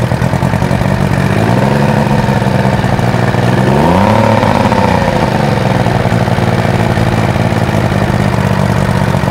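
Two-stroke 150 outboard motor, its cowling off and its carburetors freshly rebuilt, running at idle. Its revs rise about a second and a half in, climb higher around four seconds, then drop back to a steady idle.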